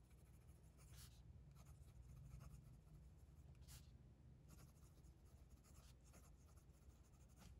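Faint scratching of a Lamy Safari's steel fountain pen nib writing cursive strokes on Cosmo Air Light paper. The writer finds the nib a little feedbacky but smooth, with no scratchiness.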